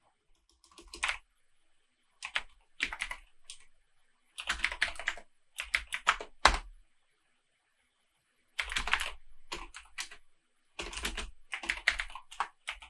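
Typing on a computer keyboard in quick bursts of keystrokes, with a pause of about two seconds in the middle.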